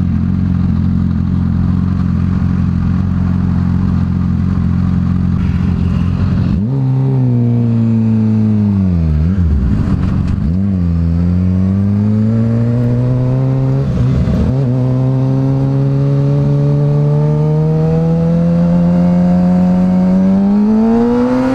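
Sport motorcycle engine idling steadily, then pulling away about a third of the way in. Its pitch rises, dips twice as the bike shifts or slows through the turn, then climbs in a long steady rise toward the end.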